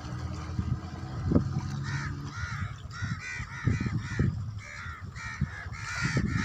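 Crows cawing in a quick repeated series that starts about two seconds in, over a low rumble.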